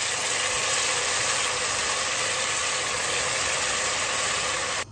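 Oil sizzling in a pan as blended pepper mix fries with sliced onions, a steady hiss with a faint hum under it. It cuts off suddenly near the end.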